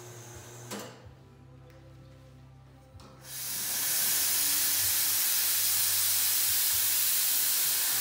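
Steam wand of an Astoria Gloria espresso machine blowing steam into open air: a loud, steady hiss that comes on about three seconds in. A shorter hiss stops under a second in.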